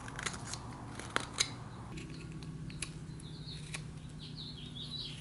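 Carving knife paring thin shavings from a small piece of soft white fir: a series of light scraping cuts, with a couple of sharper clicks about a second in.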